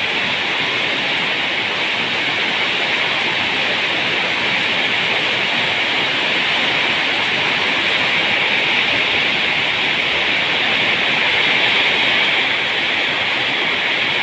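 Heavy rain pouring down in a storm, a loud, steady hiss.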